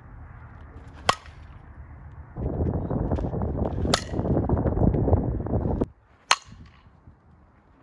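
A softball bat hitting a softball: three sharp cracks a few seconds apart. A loud low rumble underlies the middle crack and stops abruptly just before the third.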